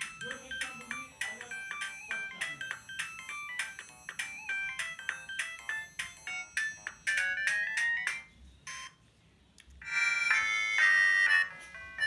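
Siemens S55 mobile phone playing its original ringtones through its loudspeaker. A quick, repeating electronic melody stops about eight seconds in. After a short pause, a different, louder tune starts.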